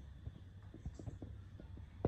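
Faint scattered soft clicks and taps over a low steady hum in a small room.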